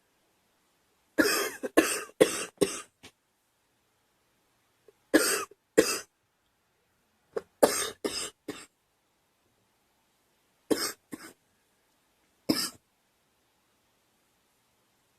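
A girl coughing in repeated fits: a run of about five coughs a second in, then a pair, a run of four, another pair and a single cough, each fit separated by a few seconds of silence.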